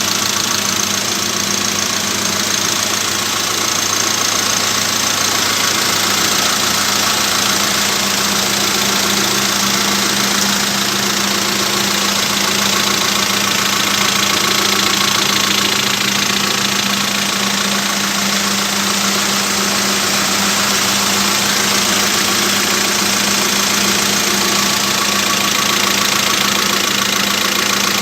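Proton Exora's 1.6 turbocharged four-cylinder engine idling steadily on its first run after a top overhaul, with a new head gasket, valves and timing belt.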